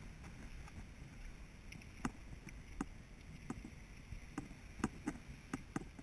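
Handling noise from a hand-held camera in a sealed case: soft, muffled knocks and clicks, coming roughly every half second to second from about two seconds in, over a low rumble.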